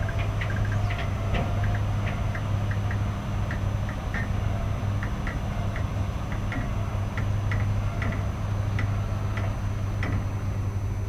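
A large engine running steadily with a low, even hum, with irregular light ticks and clicks scattered over it, about two or three a second.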